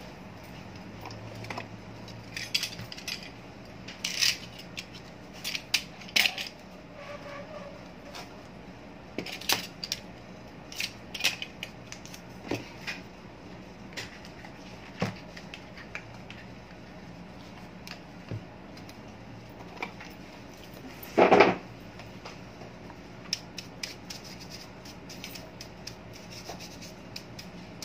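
Masking tape being pulled off its roll and handled, with scattered short clicks and rustles of small fan-motor parts and wires being handled. One louder burst of about half a second comes about three-quarters of the way through, over a faint steady low hum.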